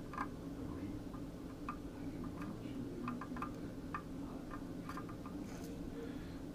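Soldering iron tip tapping and working along the pins of a small surface-mount chip on a circuit board: faint, irregular small clicks, about one or two a second, over a steady low hum.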